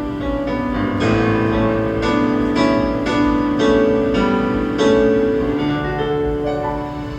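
Piano or keyboard playing an instrumental passage of struck chords, a new chord about every half second to a second, each ringing on into the next.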